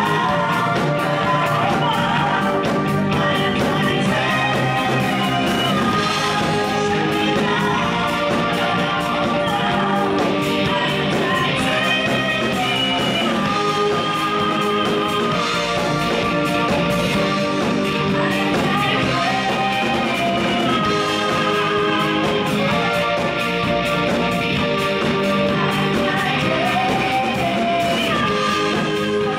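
Live rock band playing in a room: a female lead voice singing over electric guitars, drum kit and keyboard.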